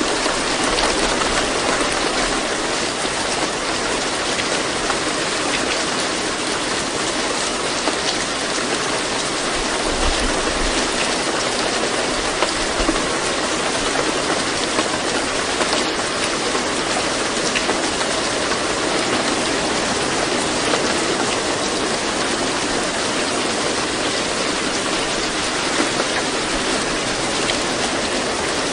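Recorded rain ambience: a steady, even hiss of rain with no voice or music heard above it.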